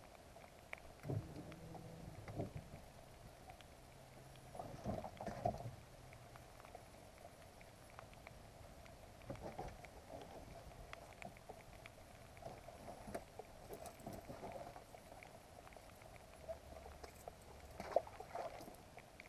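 Faint, muffled knocks and rustles of handling aboard a fishing boat, heard through a sealed GoPro waterproof case, over a steady dull hiss. The louder knocks come about two seconds in, about five seconds in and near the end.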